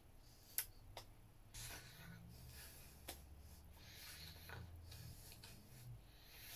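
Near silence: faint room tone with a few soft breaths and small clicks, the sharpest about half a second in.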